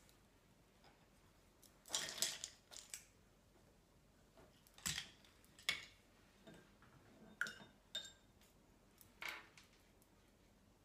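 Wooden-handled paintbrushes clattering lightly against each other and the wooden table as they are handled and sorted: a quick cluster of clicks about two seconds in, then several separate clicks and rattles spread through the rest.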